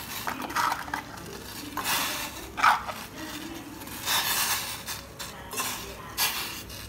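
Blocks of jaggery set by hand into a steel saucepan of water coming to the boil, knocking and scraping against the pan about five times over a low hiss.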